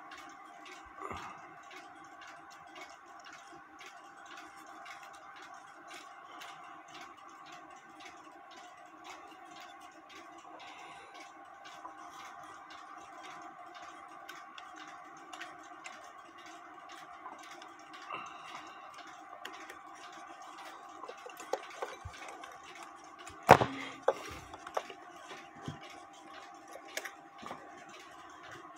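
Small clicks and knocks of a cuckoo clock bellows and its wire lift being handled and fitted against the wooden clock case, the loudest a single sharp knock about two-thirds of the way through. Under it run a steady faint hum and light, regular ticking.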